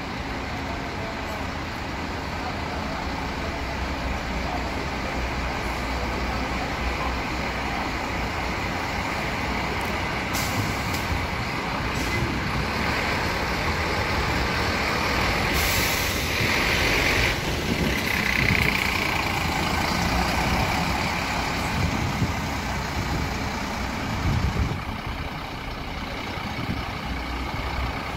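Diesel intercity coach running as it pulls out and drives past, its engine growing louder mid-way and then falling back. Air hisses from the air brakes sound about ten and twelve seconds in, with a longer hiss around sixteen seconds.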